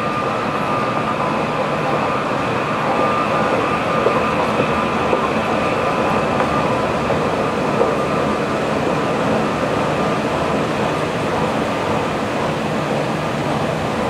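Subway-station escalator running while riding down it: a steady mechanical whir and rumble with a faint steady whine, and a few light knocks in the middle.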